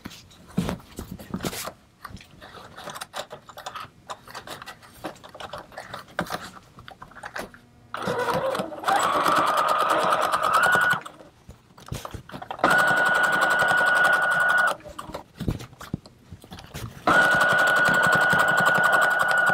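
Brother electric sewing machine stitching through layers of canvas with cording between them, in three runs. It starts about eight seconds in with a whine that rises in pitch as it speeds up, stops briefly twice, and is still running at the end. Before it starts there are small clicks and fabric rustles as the pieces are positioned under the foot.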